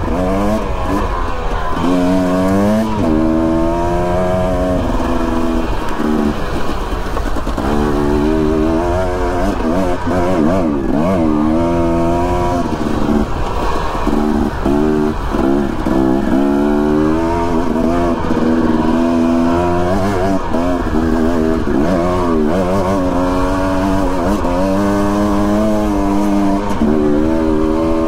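Dirt bike engine revving up and down over and over as the throttle is opened and closed and the gears change.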